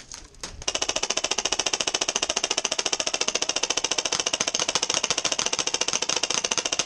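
Airsoft electric gun firing on full auto: a couple of short stutters, then a long, rapid, even burst that starts about half a second in and keeps going without a break.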